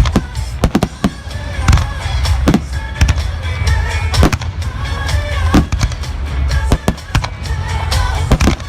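Fireworks bursting in an irregular string of sharp bangs, about fifteen of them, over a steady low rumble, with music playing underneath.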